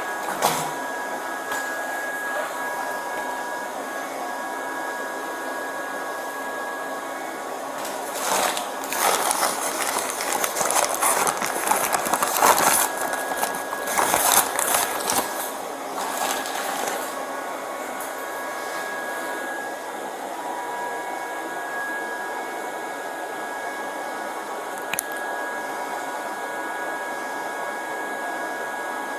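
A steady fan-like whir and hiss with a faint whine in it, with louder irregular rustling between about 8 and 17 seconds in.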